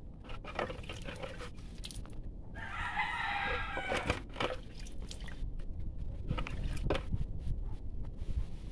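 A rooster crowing once, about a second and a half long, near the middle, over scattered light clicks and knocks from hand work on the brake assembly.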